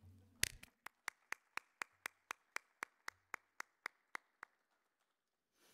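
Applause: hands clapping in a steady run of about sixteen sharp claps at roughly four a second, with fainter clapping under them. The claps stop about four and a half seconds in.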